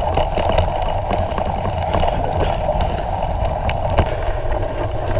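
Surly Long Haul Trucker touring bicycle being ridden through snow: steady tyre-on-snow and riding noise with a low rumble, broken by scattered short knocks and clicks as the bike goes over bumps.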